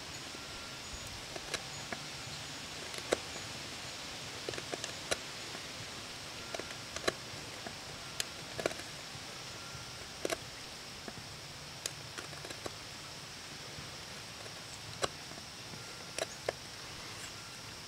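Hand-drill spindle spun by hand in the socket of a wooden hearth board, grinding down a hump in the socket: a faint steady scrubbing with scattered small sharp clicks.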